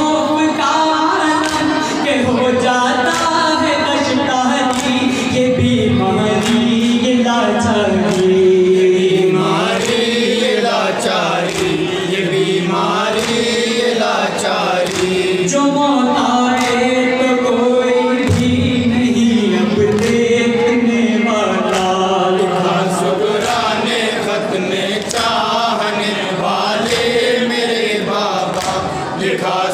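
Male voices chanting a noha, a Shia lament for Muharram, through a microphone. A lead reciter sings long, wavering lines and a group of men sings along with him, over a recurring beat of hands striking chests in matam.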